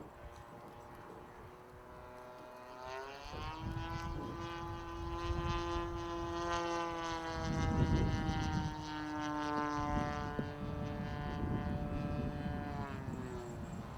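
Model airplane engine and propeller of an RC Focke-Wulf 190 flying. The engine is throttled up about three seconds in, holds a steady high note, and is throttled back near the end. A low rushing noise comes and goes, loudest about two-thirds of the way through.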